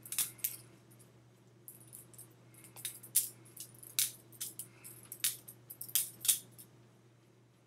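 Stainless steel butterfly-knife comb being handled and flipped: irregular sharp metal clicks and clacks of its handles and latch, the loudest about three, four and six seconds in.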